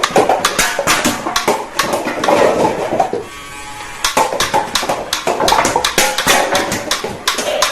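Battery-powered toy gun firing: fast, irregular clicking and rattling with a motor buzz. The clicking pauses briefly about halfway through, leaving a quieter buzz.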